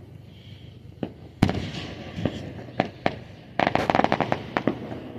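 Fireworks going off: several separate sharp bangs, the loudest about a second and a half in, then a dense run of crackling pops just past the middle.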